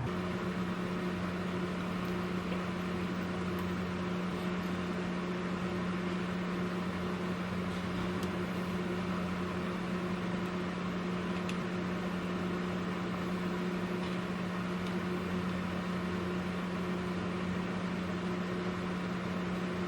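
Steady low hum of a small electric motor running, unchanging throughout.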